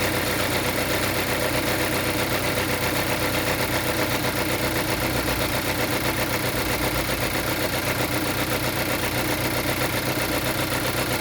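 Geely Coolray engine running steadily at idle with a rapid, even ticking pulse through it, the extraneous noise the owner is recording.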